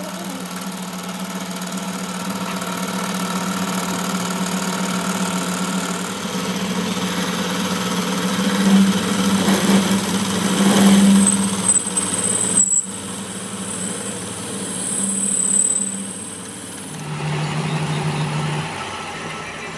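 A workshop machine running with a steady hum and a faint high whine. Near the end its pitch drops to a lower hum.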